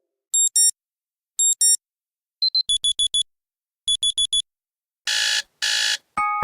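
Android's built-in alarm tones playing one after another. First come electronic alarm-clock beeps: two pairs of short high beeps, a single brief tone, and two runs of four quick beeps. Then two harsh buzzer bursts sound, and a lower chime begins just before the end.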